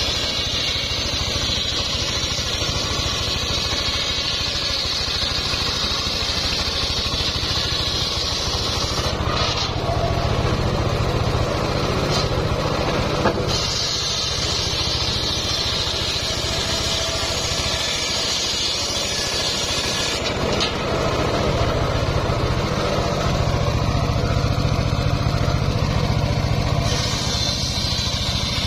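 Home-built table circular saw running steadily, its blade ripping lengthwise through teak and mahogany logs. The high cutting hiss drops out and comes back several times as the logs are fed through, over a constant low drone.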